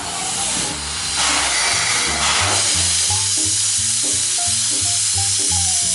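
Background music with a steady, stepping bass line, over a loud hiss that fades out about halfway through.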